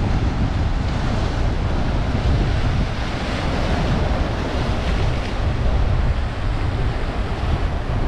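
Rough sea surf washing and breaking against a rock jetty, under strong wind that buffets the microphone with a heavy low rumble.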